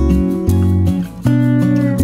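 Background music: a strummed acoustic guitar with changing bass notes, dipping briefly about a second in.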